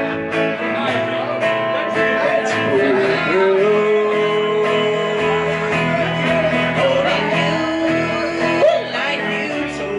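Live country band playing: electric guitar, upright bass and acoustic guitar, with long held notes that bend and slide in pitch.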